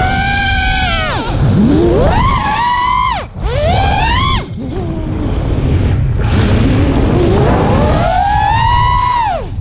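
A 5-inch 3D freestyle quadcopter's brushless motors whining with the throttle, the pitch rising and then dropping sharply several times as it flips and tumbles. The whine cuts out briefly about three and a half and four and a half seconds in, then climbs steadily from about six seconds and falls away near the end.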